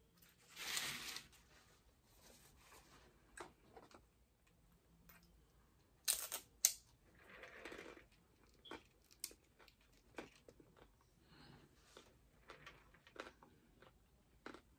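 Faint, close-miked eating sounds: irregular crunching and chewing of fried fast food, with rustling and a few sharp clicks from handling the food and sauce cups.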